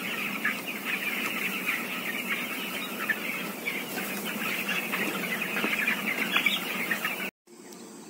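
A large flock of 13-day-old broiler chicks peeping continuously, many overlapping chirps at once. It cuts off abruptly about seven seconds in, leaving a much quieter background.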